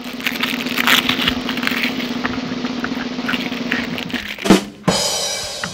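A small deck of new tarot cards being handled and spread out by hand: a quick crackle of card edges over a steady low hum, with one louder knock about four and a half seconds in.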